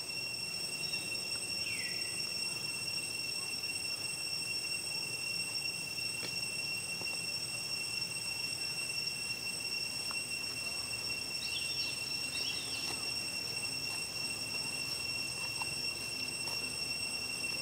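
Steady, unbroken high-pitched insect drone over outdoor background hiss. A short falling call comes about two seconds in, and a few brief high chirps come around the middle.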